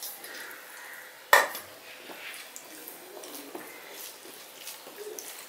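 A stainless steel bowl set down on the table with one sharp, briefly ringing clink about a second in, followed by faint clicks and soft squelching as rice and dal are mixed by hand on a steel plate.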